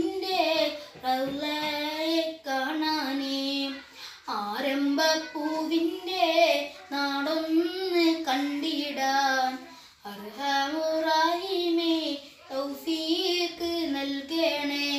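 A boy singing a devotional song solo and unaccompanied, in long held phrases with short breaks for breath about four and ten seconds in.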